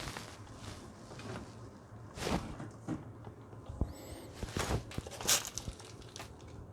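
Hands handling small parts and tools during a workshop install: irregular light knocks, clicks and rustling, with a few louder knocks about two seconds in and near the end, and a brief faint squeak in the middle.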